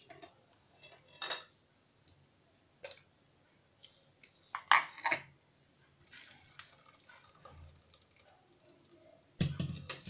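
Kitchen clatter as a blender jar is lifted off its base and knocks against a metal mesh strainer: a few sharp clinks spread over the first five seconds. Then a soft, steady hiss of thick blended juice pouring through the strainer.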